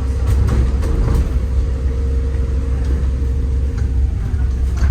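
Inside a moving city bus: low engine and road rumble with a steady hum that stops near the end, and a few faint rattles.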